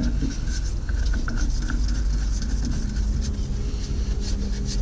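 A steady low engine-like rumble in the background, with a low steady hum joining about three seconds in.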